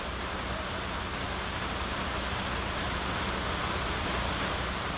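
Steady hiss of rain, with a low rumble of wind on the microphone.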